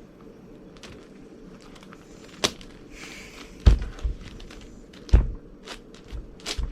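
Irregular plastic clicks and clacks of a large 11x11 Rubik's cube being turned one-handed, with two heavier knocks, a little past halfway and again about a second and a half later.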